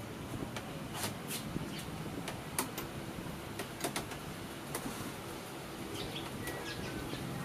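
Scattered sharp metal clicks and taps from a spark plug socket wrench being fitted into the spark plug well of a Honda Airblade 150 scooter engine, as the new plug is set in place.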